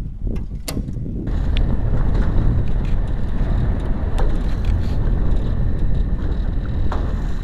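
A small boat's motor running steadily while the boat is underway on choppy water, with wind on the microphone. It starts abruptly about a second in, after a quieter stretch with a sharp click.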